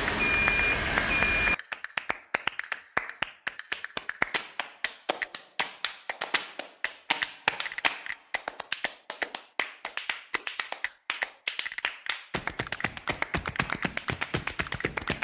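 A steady machine hum with a repeating high electronic beep, then a cut to rapid, irregular sharp clicks, several a second, typical of plastic retainer clips being snapped into a part held in an assembly nest.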